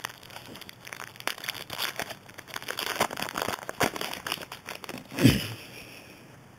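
Stiff trading cards being slid and flipped through by hand, a close run of small clicks and papery rustles. A louder thump comes about five seconds in, then the handling goes quieter.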